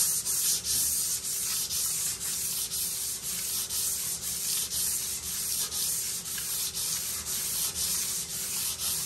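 Hand sanding a blasted metal pinball lockbar lengthwise with 80-grit sandpaper on a block, putting a grain into the metal: a steady back-and-forth scraping at about two strokes a second.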